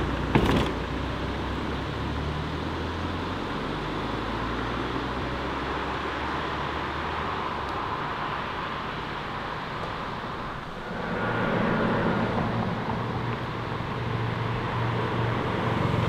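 Modified Ford Mondeo Mk4 with a quad-tip exhaust accelerating away, with a sharp crack about half a second in, then its engine note fading into the distance. About eleven seconds in, a Ford Fiesta ST's engine takes over, steady and louder.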